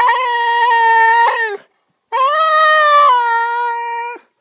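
Husky talking at a rabbit: two long, drawn-out, howl-like calls. The first ends about a second and a half in, and the second starts half a second later and steps down in pitch partway through.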